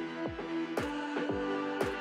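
Electronic background music with a steady beat: deep drum hits about twice a second under sustained held chords, with a cymbal-like stroke about once a second.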